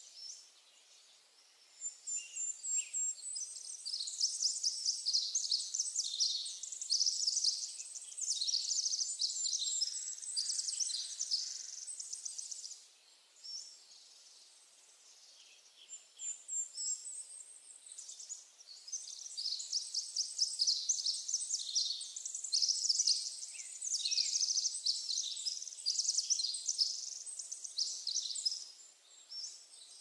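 Songbirds singing: dense, rapid, high-pitched chirping and twittering in two long bouts, with quieter gaps between them.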